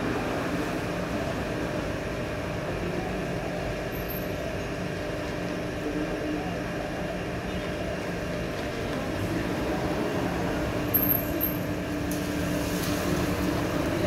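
Steady low mechanical hum, with a few held tones over a noisy rumble, like an engine or traffic.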